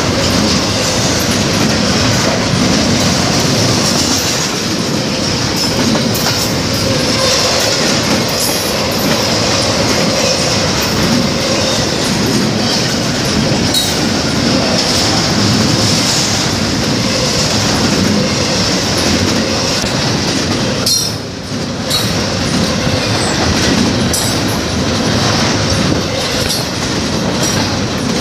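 Norfolk Southern double-stack intermodal freight train rolling past close by: a loud, steady rumble and rattle of the container cars, with wheels clicking over the rail joints and a high wheel squeal. The noise dips briefly about three quarters of the way through.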